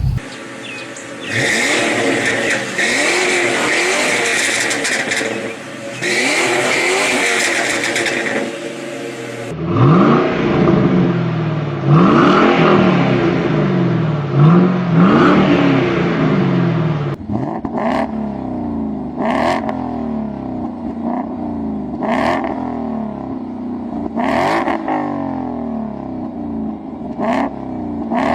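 Ford Mustang engines revving in a string of short clips cut together, the pitch climbing and falling again and again, with abrupt changes of car at about ten and seventeen seconds in. In the last clip, short sharp snaps come every second or two over the engine.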